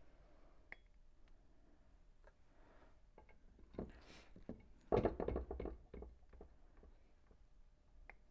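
Freshly poured lead sinkers and jig heads being handled and dropped into a tackle box: scattered light clicks, then a quick run of knocks and clinks about five seconds in.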